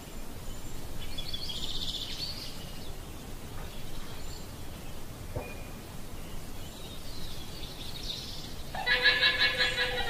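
Llama calls: a faint high-pitched call about a second in and another near 8 s, then a louder, pulsing, whinny-like call near the end, over steady low background noise.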